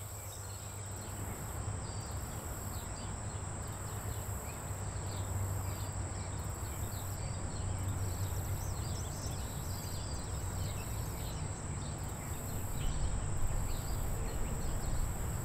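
Outdoor ambience fading in: a steady high-pitched insect drone, with faint scattered chirps and a low hum underneath.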